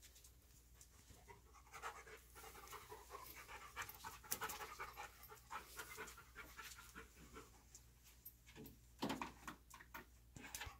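A search dog panting faintly in short quick breaths as it works the room.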